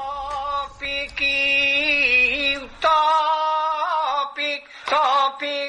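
Short sung jingle: voices chanting a repeated phrase in long held notes, with brief breaks between phrases.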